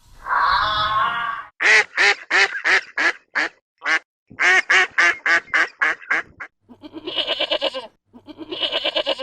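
Duck quacking in a rapid run of short calls, about three a second, with a brief break midway. Then two longer wavering bleat-like calls.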